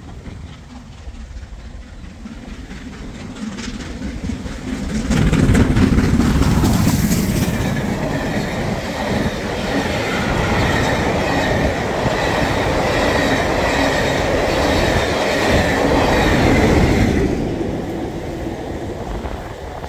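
LMS Stanier Black Five 4-6-0 steam locomotive 44871 and its train of coaches passing close by on the rails. The sound builds as the engine approaches and is loudest about five seconds in as it goes past. The coaches follow with rumbling, clattering wheels and a high ringing, fading away near the end.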